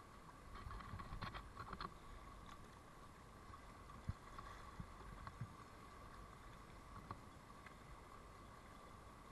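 Faint splashes of kayak paddle strokes in moving river water, a few of them close together in the first two seconds, over a thin steady hum.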